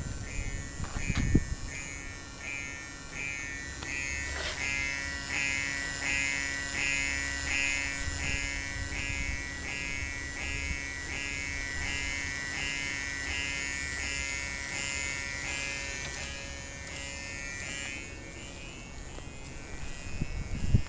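Small electric water/methanol injection pump buzzing steadily while spraying, with an even pulsing about twice a second. It cuts off a few seconds before the end. A couple of sharp knocks come near the start and at the end.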